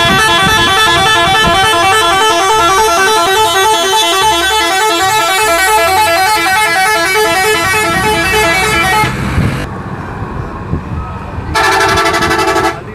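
Indonesian coach bus's multi-tone "telolet" musical horn playing a rapid repeating run of notes for about nine seconds, then cutting off. A second short blast of the horn sounds near the end, with quieter engine and road noise in between.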